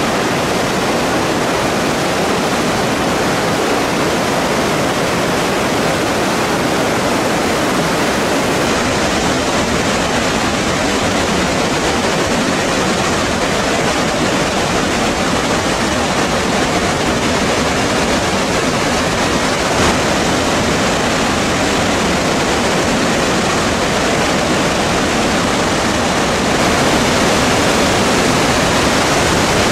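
Waterfall on the Krka river: a loud, steady rush of falling water that gets slightly louder about 26 seconds in.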